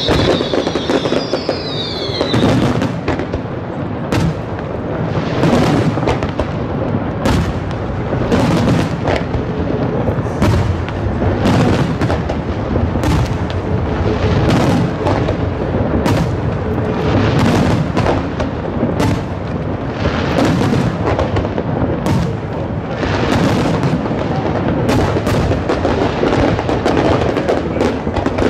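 Aerial fireworks shells bursting in rapid, overlapping succession: a near-continuous run of booms and crackles, with a few falling whistles in the first two seconds.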